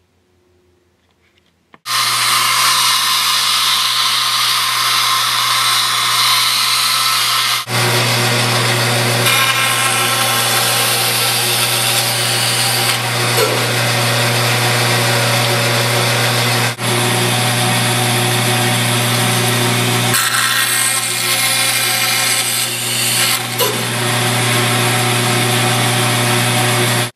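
Workshop power tool running steadily, a low hum under a loud hiss. It starts suddenly about two seconds in, dips briefly twice, and stops abruptly near the end.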